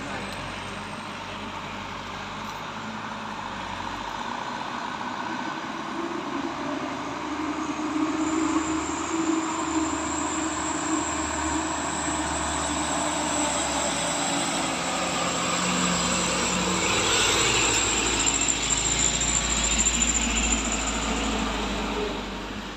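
Light truck's engine labouring up a steep climb, growing louder as it approaches and passes close by near the end. A thin steady high whine sits over the engine for much of the time.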